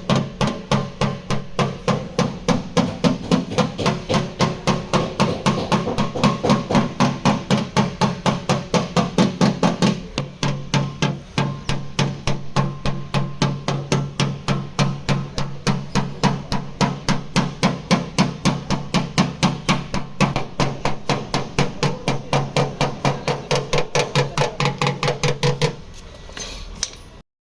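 Hammer rapidly tapping out a car's sheet-metal body panel, about four blows a second with a short break about ten seconds in, stopping shortly before the end. A steady low hum runs underneath.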